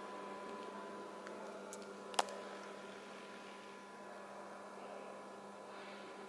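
Quiet room tone: a steady hum over faint hiss, broken by one sharp click about two seconds in.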